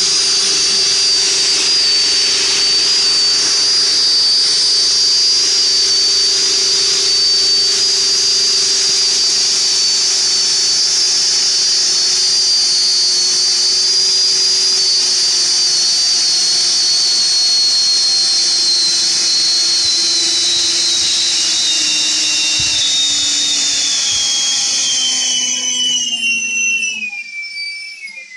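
Two 70 mm twelve-blade electric ducted fans running at high throttle: a steady high whine over a rush of air, slowly sinking in pitch. Near the end they spool down, the whine gliding lower as the sound dies away.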